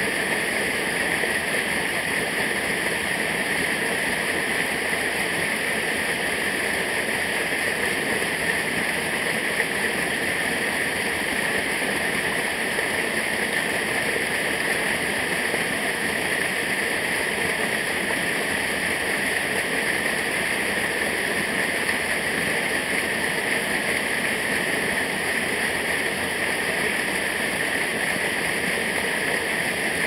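Small mountain stream cascading over rocks, a steady rush of falling water.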